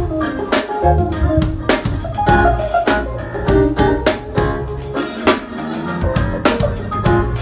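Live band jamming an instrumental: drum kit keeping a steady groove under sustained keyboard chords and bass guitar. The bass drops out for under a second a little past halfway, then comes back in.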